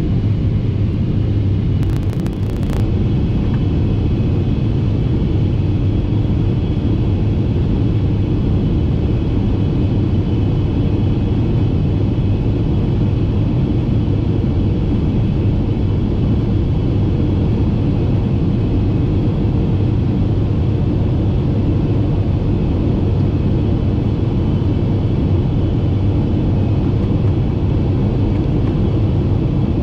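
Steady cabin noise of a Boeing 747-8i in flight, heard from a seat over the wing: the GE GEnx-2B67 turbofans and airflow make a deep, even drone with faint steady high tones above it. There is a brief rustle or click about two seconds in.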